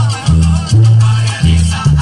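Upbeat Latin dance music with a deep bass line changing note about every half second over steady percussion.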